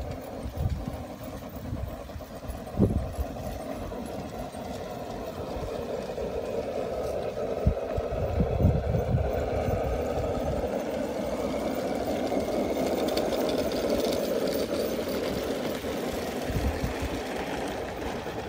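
Model Mallet locomotive on a garden railway pushing a snowplow along snowy track: a steady motor-and-running-gear hum that builds as it passes, is loudest about two-thirds of the way through, then fades. A few low thumps sound in the first half.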